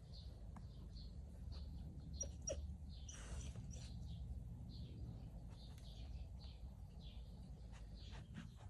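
Faint, high-pitched squeaks from a small animal, many short falling cries in quick succession, with a slightly louder cluster about three seconds in, over a low steady rumble.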